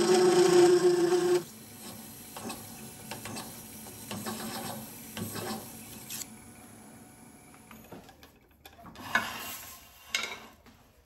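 Parting tool cutting a groove into a spinning solid brass cylinder on a wood lathe: a loud, steady whine that stops abruptly about a second and a half in. Softer, irregular scraping and rubbing of metal follows, with a couple of sharper knocks near the end.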